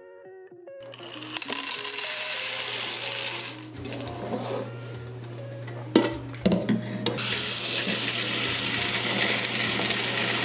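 Kitchen tap running into a stainless steel pot of soaked red kidney beans in a metal sink, rinsing them. The water eases off briefly in the middle, where the pot gives two sharp metallic knocks, then runs steadily again.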